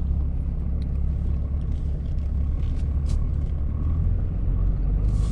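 Truck driving on a gravel dirt road, heard from inside the cab: a steady low rumble of engine and tyres.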